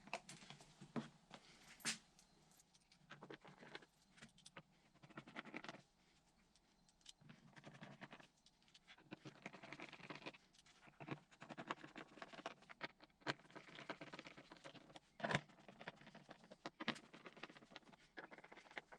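Faint, scattered clicks, taps and rustles of plastic and metal parts being handled as the airbox of a Triumph Speed Triple 1050 is fitted back together, with a sharper tap about fifteen seconds in.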